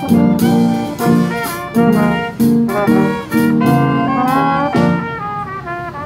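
Youth jazz band playing live: trombones and saxophones in short, repeated accented chords, softer in the last second.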